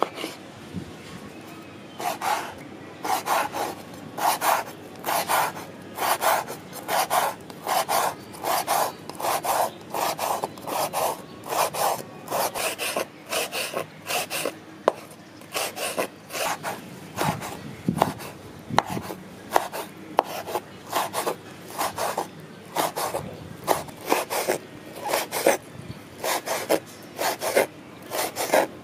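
Chef's knife slicing and dicing tomato on a wooden cutting board. A steady run of cuts starts about two seconds in, roughly one to two strokes a second, each blade stroke going through the flesh and ending on the wood.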